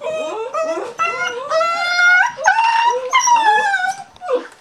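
German Shepherd puppy crying and whining while held and dosed with wormer: a string of short rising whines, then longer, louder cries that climb in pitch, ending in a long wail that slowly falls away near the end.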